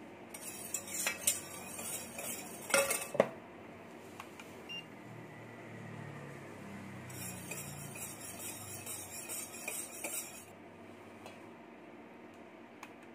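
Wire whisk clinking and scraping against a stainless steel bowl in two spells, the first ending in a few sharp metal knocks.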